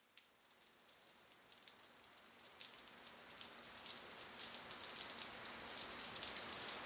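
Rain falling, a dense patter of fine drops over a steady hiss, fading in from very faint and growing steadily louder.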